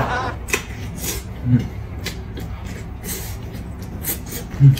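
Eating sounds from a man gnawing and chewing meat off a braised pork knuckle bone: scattered wet mouth clicks and smacks, with three brief low hums, near the start, about a second and a half in, and near the end.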